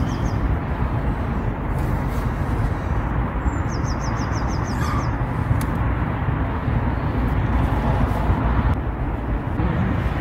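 Steady low rumble of wind buffeting the microphone outdoors. About three and a half seconds in, a small bird gives one short, rapid high trill.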